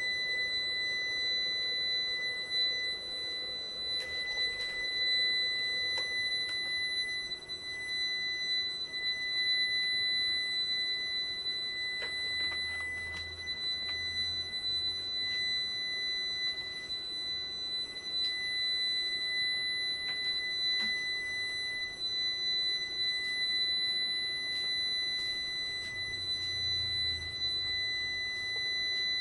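Steady high-pitched electronic tone from a powered solar inverter board under test, unbroken and unchanging in pitch. A few faint clicks come from the probes being moved on the board.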